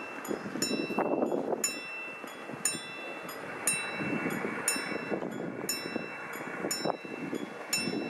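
GDR-era WSSB level crossing warning bell ringing in regular strokes, about one loud stroke a second with softer ones between. It is the warning that the barriers are about to close, and the boom starts lowering near the end.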